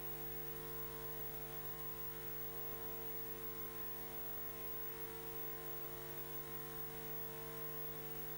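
Faint steady electrical hum with a light hiss, unchanging throughout: the blank gap of a recording with no programme sound.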